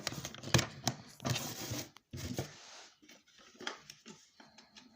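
Clatter of hard objects being handled on a bench: a run of sharp clicks, knocks and short scrapes over the first three seconds, then a few fainter clicks.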